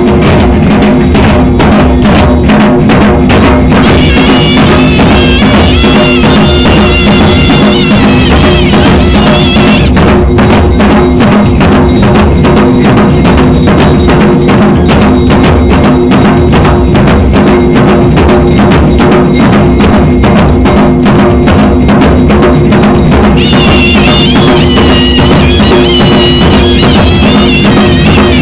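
Traditional Himachali dhol drums beaten with sticks in a fast, dense, driving rhythm, very loud. A high wavering melody plays over the drums from about 4 to 10 seconds in, and again from about 23 seconds in.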